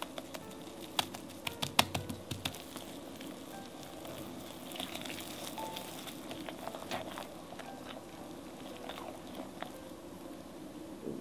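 Silicone-coated whisk knocking against a glass bowl in a quick run of sharp clicks during the first few seconds, as it is shaken to free flour clumped inside it. Then the whisk stirs thick financier batter with soft, wet swishing.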